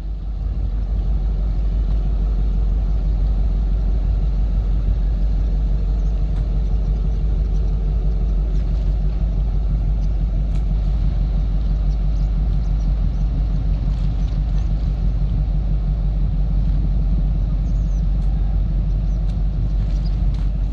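A steady, loud, low engine rumble that sets in right at the start and holds evenly throughout.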